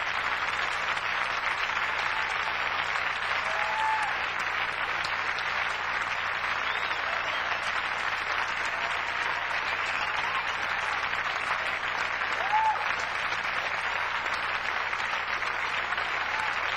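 Studio audience applauding steadily, with a few short cheers rising above the clapping, one about four seconds in and a louder one past the middle.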